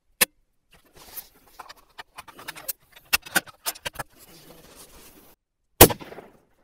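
A single 7mm hunting rifle shot near the end, a sharp crack followed by a brief echo off the open field. Before it come a sharp click and a run of quieter clicks and rustles as the shooter settles behind the rifle.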